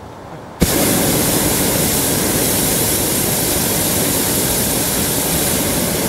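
Hot-air balloon's propane burner firing: it starts suddenly with a sharp click about half a second in, then runs loud and steady.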